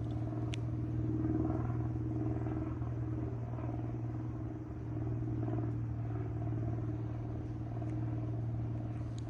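A steady low motor hum holding one pitch, engine-like.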